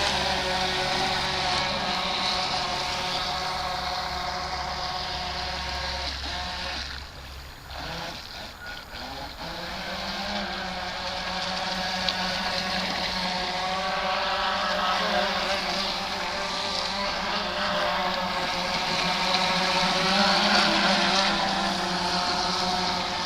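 NDQ PX-16 electric RC boat running with a steady motor whine. About seven seconds in the whine drops away for a couple of seconds, as when the throttle comes off, then picks up again and holds.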